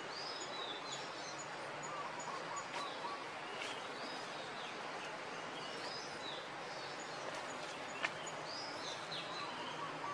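Birds calling over a steady background hiss: short chirps repeating high up, and runs of quick lower notes near the start and again near the end. One sharp click about eight seconds in.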